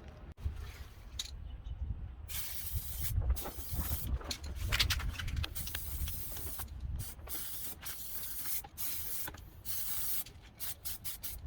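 Aerosol can of primer spraying onto plastic door trim pieces in repeated bursts, starting about two seconds in, with several quick short blasts near the end.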